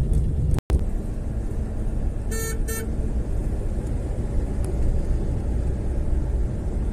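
Steady low road and engine rumble heard from inside a moving car, with two short horn beeps about two and a half seconds in. The sound cuts out for a moment just over half a second in.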